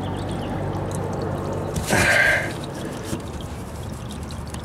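Engine oil trickling from the open drain-plug hole into a catch pan as the drain finishes. There is a short, louder burst of noise about two seconds in.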